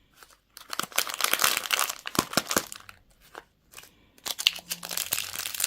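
Crinkling of plastic candy or toy wrapping being handled and opened, in two spells of dense crackle with a short pause between.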